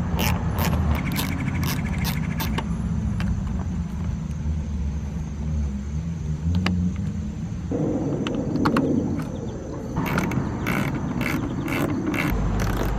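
A ratchet or socket wrench clicking in runs as it backs out the 7mm bolts around a door panel's edge, with scraping from about eight seconds in and a steady low rumble underneath.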